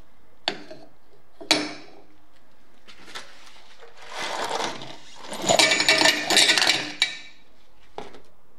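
Rusty steel bicycle parts dropped into a plastic measuring jug, clinking against the plastic and each other. Two sharp clinks come in the first second and a half. A longer run of rattling clatter follows from about halfway through as more bolts, nuts and rings tumble in, and a last clink comes near the end.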